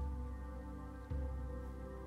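Background ambient music: held, sustained tones with a soft low bass note about once a second.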